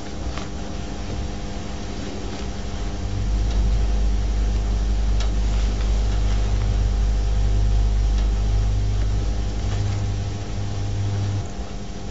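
Steady low hum and hiss with no distinct event; a deeper rumble joins about three seconds in and stops about a second before the end.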